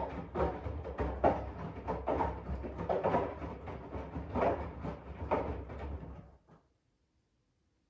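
AEG 7000 Series washing machine drum turning in the main wash of an easy-care 40 °C cycle: laundry and water slosh and flop in an irregular rhythm over a low motor hum. The drum stops about six and a half seconds in.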